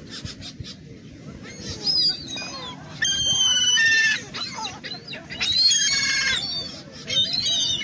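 Gulls calling: loud, high, drawn-out calls about two, three, five and a half and seven seconds in, one of them breaking into a rapid run of short notes.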